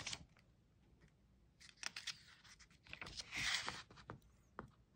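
Paper pages of a stamp booklet handled and turned by hand: a few light taps and a short rustle of paper about three seconds in.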